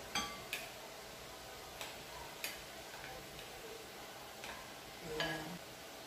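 A spatula scraping and tapping against glass mixing bowls as grated papaya is scraped out, giving a few soft, spaced-out clinks and taps, some with a short glassy ring.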